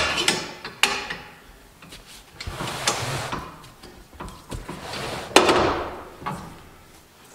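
A tire on an aluminium wheel being handled and turned over on a carpeted bench: a few knocks at first, a rubbing scrape, then a heavy thud about five and a half seconds in as it is laid down flat.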